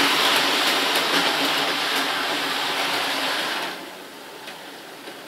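00 gauge model train running on the layout, its motor and wheels making a steady whirr and rattle with faint clicks. About three and a half seconds in it turns much quieter as it is throttled down toward a crawl.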